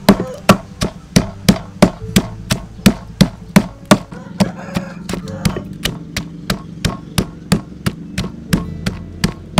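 Wooden pestle pounding raw sea crabs in a mortar, about three strikes a second in an even rhythm.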